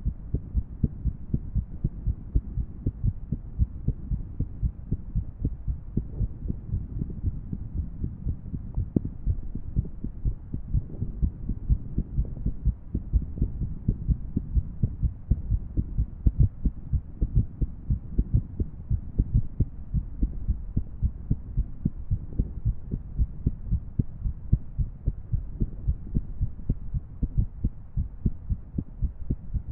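A woman's heartbeat, an irregular rhythm: short low thuds come unevenly spaced and unequal in strength, over a steady low rumble.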